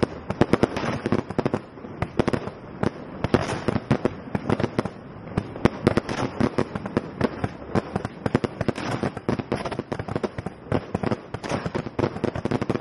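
Fireworks going off in a dense, rapid barrage of sharp bangs and crackles, many reports a second with no let-up.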